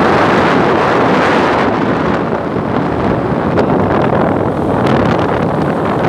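Wind buffeting the microphone: a loud, steady rushing rumble with small gusty fluctuations, heard from a camera on the move.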